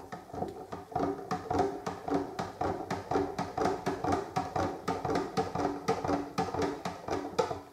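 A stirrer clacking and scraping around inside a metal beer-kit tin filled with hot water, in a quick steady rhythm of about four strokes a second, dissolving the last of the malt extract stuck to the tin.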